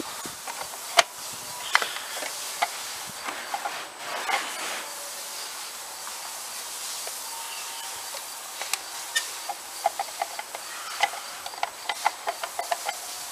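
Hard plastic steering-wheel centre cap being pressed and fitted onto a riding mower's steering wheel hub by hand. It makes scattered clicks and taps, then a quick run of clicks in the second half, over a steady background hiss.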